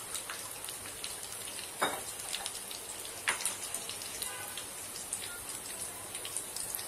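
Bread pakoras deep-frying in hot oil in a metal wok: a steady sizzle full of fine crackles, with two sharp clicks about two and three seconds in.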